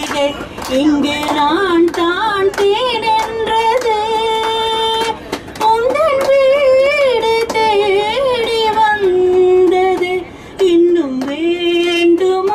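A woman singing solo into a handheld microphone: long held notes with sliding, wavering pitch, broken by two short pauses for breath.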